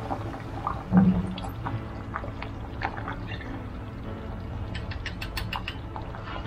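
Fish sauce poured from a bottle into a metal ladle held over a pot of simmering coconut-milk curry, with small liquid clicks and drips. There is a thump about a second in and a run of short clicks near the end.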